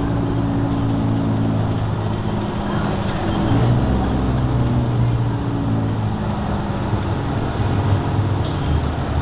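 New Flyer XD60 articulated bus's diesel engine running steadily under way, heard from inside the passenger cabin with road noise; the engine note shifts in pitch a few times.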